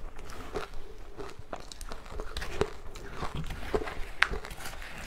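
Close-miked chewing of a mouthful of matcha-powdered freezer-frost ice: irregular crisp crunches two or three times a second, with one sharper crunch about four seconds in.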